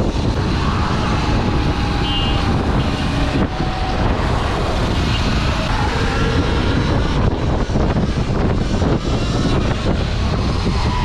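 Steady wind buffeting on the microphone mixed with vehicle noise, as on a moving bike.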